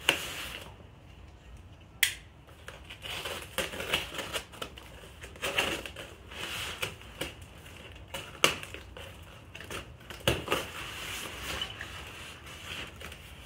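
A small cardboard box being slit open along its packing tape with a knife, then its flaps pulled open and the contents handled. The sound is an irregular run of sharp scrapes, crackles and rustles, with a few louder snaps of cardboard.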